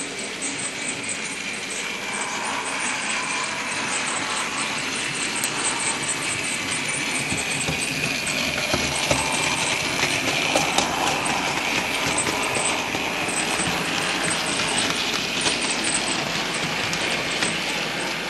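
Model railway 3F tank locomotive hauling a short freight of wagons over the track: a steady electric-motor whine with a fast run of small wheel clicks, getting a little louder after the first few seconds.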